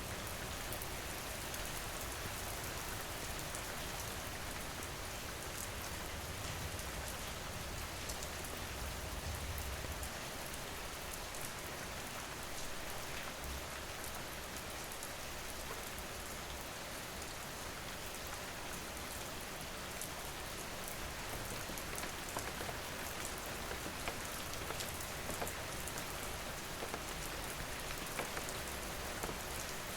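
Steady rain falling, with many individual drops tapping, over a low, uneven rumble of wind.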